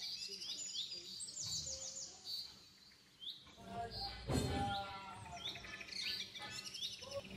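Small birds chirping, with short high calls repeated throughout. There is a soft thump about four seconds in.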